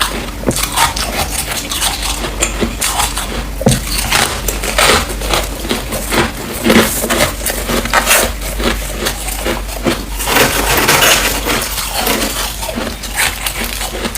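Freezer frost crunching and crackling in quick, irregular crisp cracks, with louder crunches about every second.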